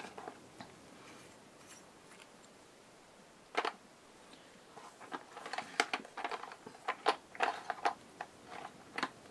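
Small plastic lids being taken off watercolor paint pots and set down on a table: scattered light clicks and taps, one about three and a half seconds in, then a quicker run of them over the last few seconds.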